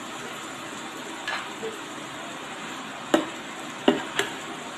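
Lumpia filling of ground beef and potato sizzling in a pan, with a spatula knocking against the pan a few times as it is stirred, the sharpest knocks in the second half.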